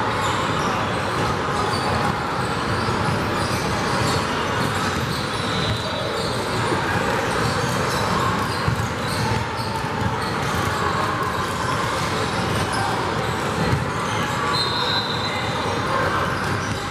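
Busy gymnasium din: many voices chattering and basketballs bouncing on hardwood courts, with a short high squeak near the end.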